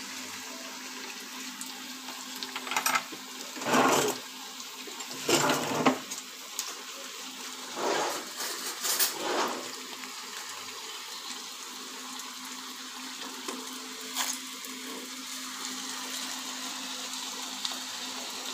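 A quesadilla deep-frying in plenty of hot oil, sizzling with a steady hiss. Several louder short bursts stand out in the first half and once more about two-thirds of the way in.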